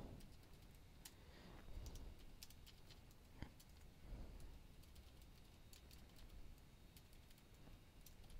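Faint typing on a computer keyboard, irregular keystrokes.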